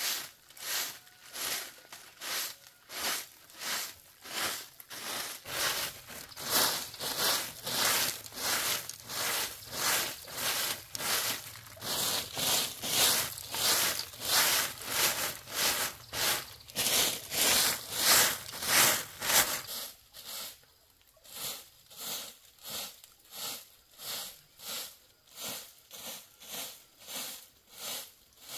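Rhythmic scraping strokes, about three every two seconds, heavier and louder for a long stretch in the middle before turning lighter again.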